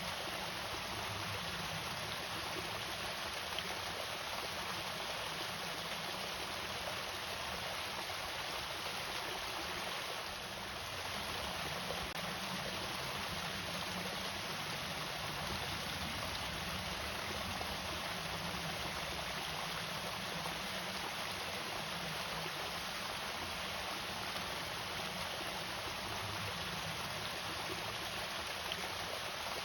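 Water falling steadily over a small irrigation waterfall, a continuous even noise with no break.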